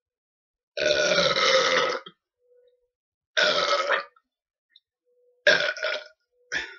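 Deliberate, loud belches, brought up by drinking carbonated Dr Pepper soda: one long belch of a little over a second, then a shorter one, then two short ones close together near the end.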